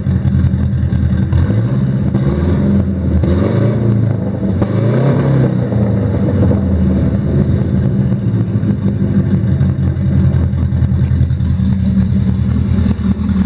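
Subaru 1.8-litre turbo flat-four running through a cat-deleted, dual-exit 3-inch exhaust: steady idle, revved up and back down a few seconds in, then settling back to idle.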